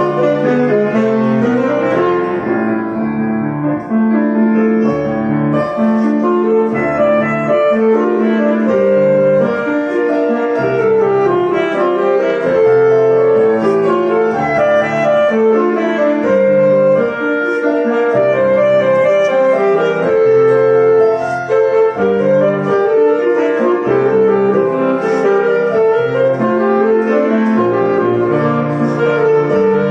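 A solo reed or brass wind instrument plays a busy melody over piano accompaniment, with no pauses.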